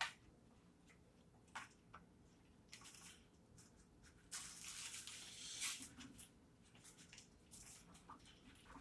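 Soft intermittent rustling of a blood pressure cuff being handled and rolled up, with a longer stretch of rustling about halfway through.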